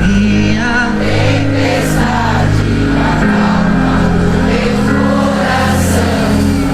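Live Christian worship music: a band holding long sustained chords under voices singing.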